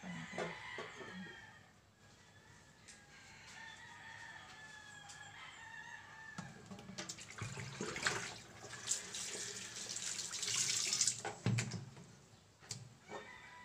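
Water running from a kitchen tap into a plastic basin at the sink for about four seconds in the second half, then shut off abruptly, with a few knocks of handling. Before it, drawn-out animal calls sound in the background.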